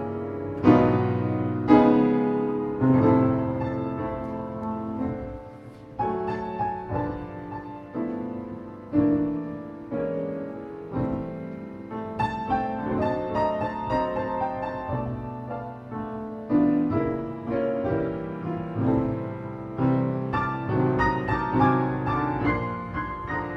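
Solo piano playing a composed piece: strong struck chords that ring and fade, giving way about halfway through to busier runs of notes higher up the keyboard.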